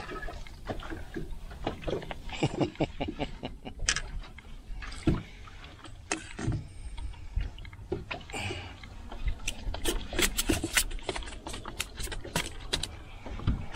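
Water splashing and sloshing by a fishing boat, with scattered sharp knocks and clicks throughout.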